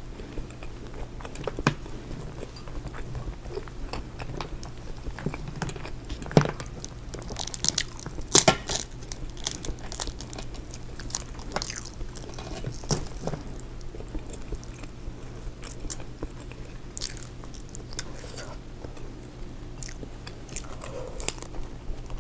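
Close-miked eating: chewing and biting on seafood, with scattered sharp clicks and cracks. The loudest cracks come about six and eight and a half seconds in.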